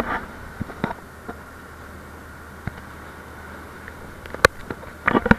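Outrigger boat's engine running with a steady drone over the rush of wind and sea, broken by a few sharp knocks, the loudest about four and a half seconds in.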